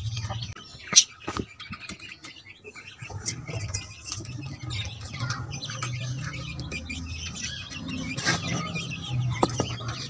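Birds chirping, with a few chicken clucks mixed in. A sharp knock about a second in, and a low rumble from about three seconds in.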